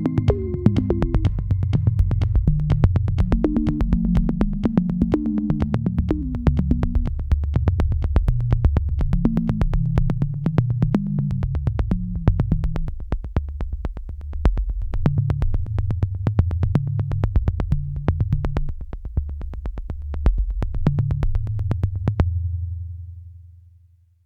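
Electronic background music: synthesizer bass line with a fast, even beat, the beat stopping near the end and the music fading out.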